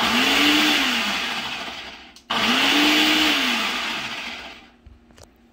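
Personal blender pulsed twice to mix a liquid honey mustard dressing: each pulse the motor spins up and winds down over about two seconds, the second starting a little over two seconds in.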